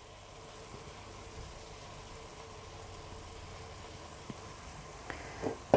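Sliced onions frying gently in butter in an aluminium pot, a faint steady sizzle, while a pepper mill grinds black pepper over it with a few light ticks. A sharper knock sounds at the very end.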